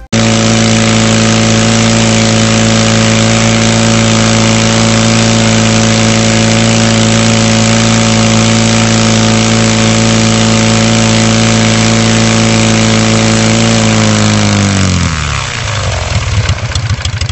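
UltraVair 35 hp two-cylinder four-stroke aircraft engine, built from two cylinders of a Corvair engine, running steadily at speed and turning its propeller. About fourteen seconds in, its speed drops and it settles to a slower, rougher beat.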